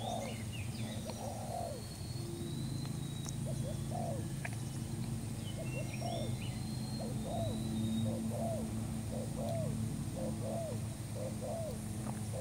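Spotted doves cooing: a long run of short, low coo notes, about one or two a second. Now and then small birds chirp briefly and high, over a steady low hum.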